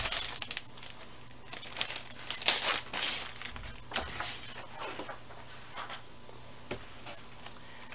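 Clear cellophane wrapper of a scrapbook paper pack crinkling and rustling as it is pulled open by hand. The rustles come irregularly, the loudest about two to three seconds in.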